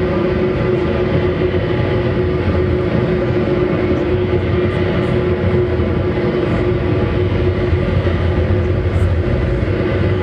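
Live experimental noise-drone music: a loud, unbroken wall of distorted sound with several held tones over a thick low rumble, no beat and no change in level.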